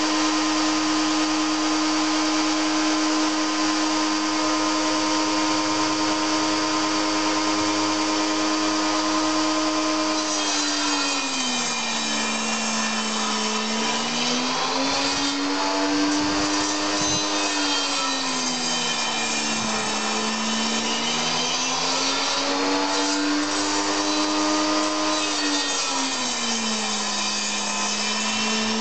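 Schwarzbau TS250A table saw (2500 W) running with a steady whine, then dropping in pitch three times, about ten seconds in and every seven or eight seconds after, as the motor slows under the load of wooden blocks being cut and speeds up again between cuts.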